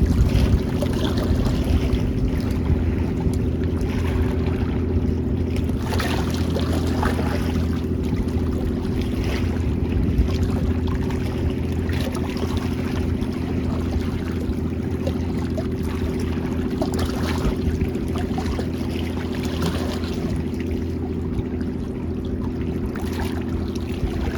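A steady engine hum running evenly, over the wash of sea water and wind.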